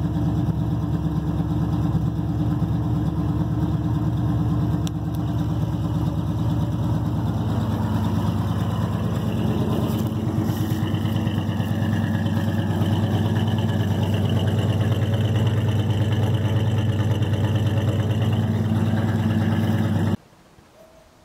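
1978 Chevrolet farm truck's engine idling steadily while warming up after a cold start, heard first from inside the cab and then from outside beside the tailpipe. The sound cuts off abruptly near the end.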